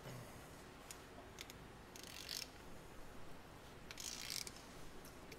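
Socket ratchet clicking in a few short bursts of rapid clicks, each about half a second long, as a stuck bolt on a Ford 289 V8's cylinder head is worked back in after a squirt of lube.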